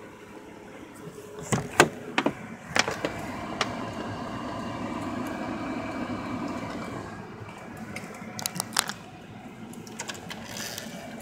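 Car seat being adjusted: a few sharp clicks and knocks, then a small electric motor, most likely the power seat motor, runs steadily for about four seconds before more clicks near the end.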